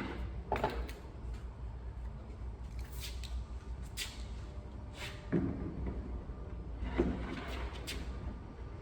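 Scattered light knocks and clicks, about eight, of a phenolic racking shelf panel being handled and fitted into van racking, over a low steady hum.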